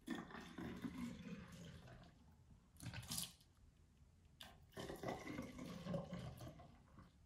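Liquid poured from a glass jug into narrow bottles, twice, the second pour starting about halfway through. It is a yeast-and-warm-water mixture going into hydrogen peroxide and dish soap, adding the yeast that starts the elephant toothpaste foaming.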